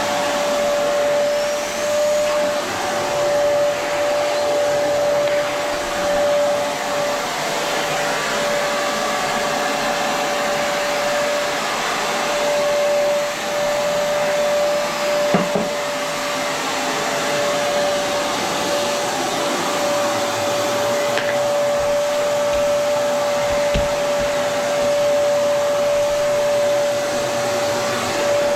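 Vacuum cleaner running on carpet, a steady motor whine over airflow noise, with a brief knock about fifteen seconds in.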